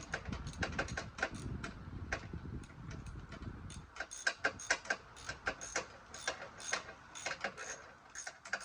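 Ratchet wrench clicking in quick, fairly even strokes as it backs out an engine-mount bolt.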